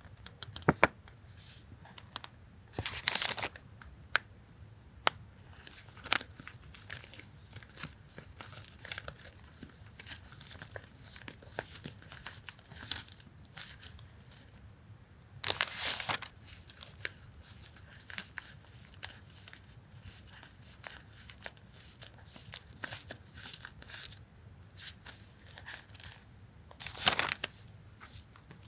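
Paper and plastic stationery packaging being handled: light crinkling and rustling with many small taps and clicks, and three louder tearing or crumpling rustles spread through.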